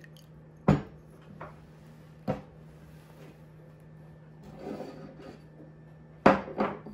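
Small ceramic bowls knocking as they are set down and picked up on a wooden tabletop. There are three short knocks, about a second in, about two seconds in and a louder one near the end, with a soft rustle of handling between them, over a faint steady low hum.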